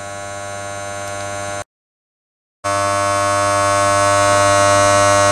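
A steady electrical buzzing hum that slowly grows louder, cuts out completely for about a second partway through, then comes back louder.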